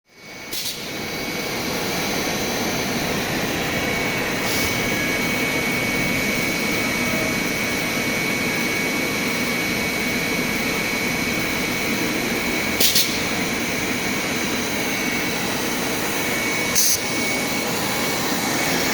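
PVC hose extrusion line running: a steady machine noise with a thin, constant high whine, broken by a few short sharp clicks.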